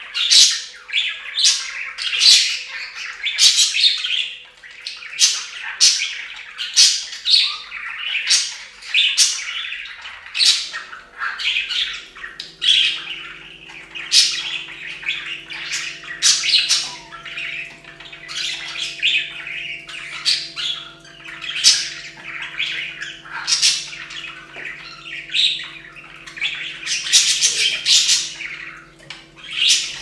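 Budgerigars chattering: a fast, continuous run of chirps, warbles and squawks.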